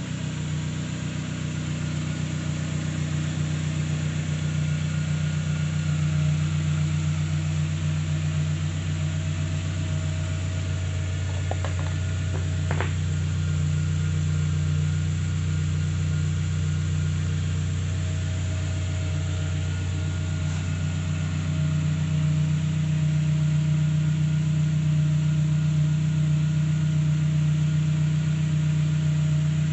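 Turbocharged Toyota 3RZ 2.7-litre four-cylinder petrol engine, its turbo kit just fitted, idling steadily. Two brief clicks come about halfway through.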